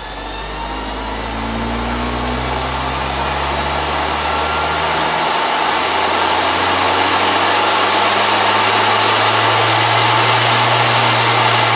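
Treadmill DC drive motor with its flywheel, speed control turned all the way up. It spins up with its hum rising in pitch over about five seconds, then runs steadily at top speed with a loud whooshing whir.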